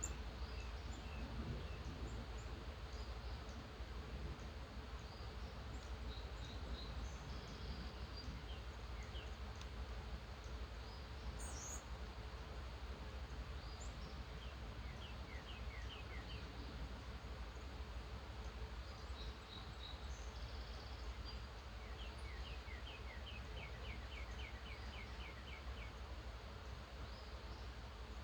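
Several birds calling and singing in the early morning, with scattered chirps and rapid runs of short repeated notes, the longest near the end. Beneath them runs a steady background hum.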